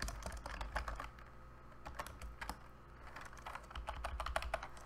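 Typing on a computer keyboard: runs of key clicks with short pauses between them, the densest run near the end.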